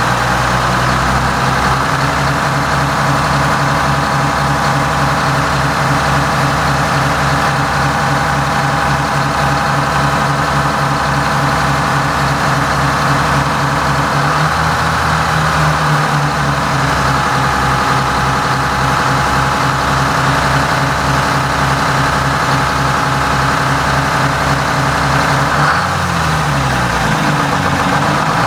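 Detroit Diesel 12V71, a two-stroke V12 marine diesel, running steadily, heard up close in the engine room. Its note shifts slightly about halfway through, and near the end the engine speed dips and comes back up.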